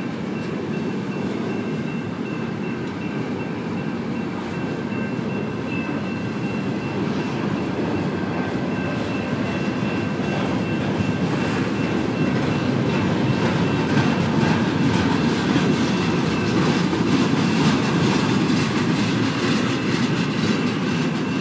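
Double-stack intermodal freight train well cars rolling past: a steady rumble of steel wheels on rail, with clickety-clack from the wheels over rail joints that grows denser and a little louder in the second half. A faint high steady whine runs through the first half.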